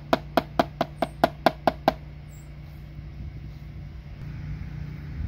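A cleaver chopping raw squid on a plastic cutting board: about ten quick knocks in the first two seconds, over a steady low hum.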